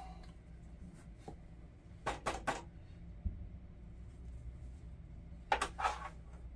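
Handling of a small canvas shooting rest bag filled with kitty litter: a quick run of three short rustling crunches about two seconds in, and two more near the end as it is set down on a bathroom scale, over a low steady room hum.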